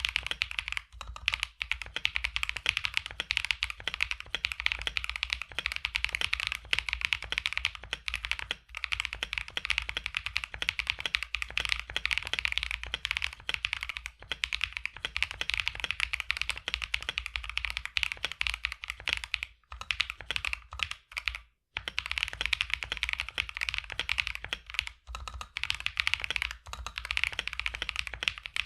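Continuous fast typing on a mechanical keyboard with hand-lubed Akko CS Lavender Purple tactile switches: a dense run of keystrokes that sound deep and thocky with a slight pop, broken by a few short pauses.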